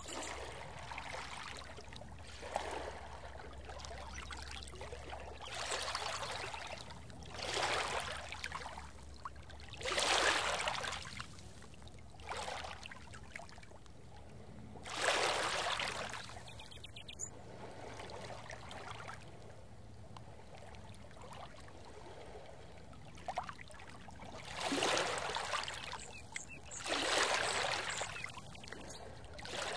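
Rushing water in swells that rise and fade every two to four seconds, over a faint steady low hum.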